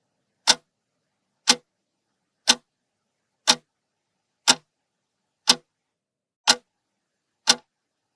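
Clock-tick sound effect ticking once a second, eight evenly spaced ticks with silence between. It is a countdown timer for guessing the riddle's answer.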